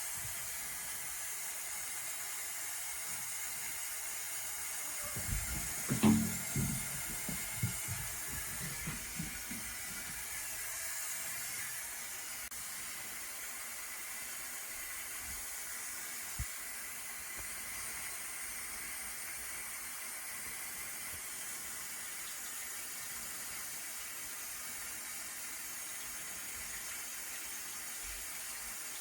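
Steady hiss with a run of thumps and knocks, the loudest about six seconds in, as a cat plays on a bathroom floor. One sharp click comes later.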